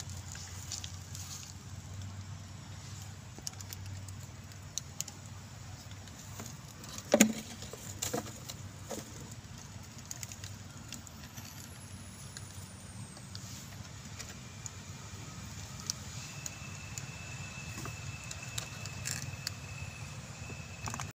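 Outdoor ambience: a steady low hum with scattered light ticks and clicks, one sharp loud click about seven seconds in. A faint steady high tone sets in about two-thirds of the way through.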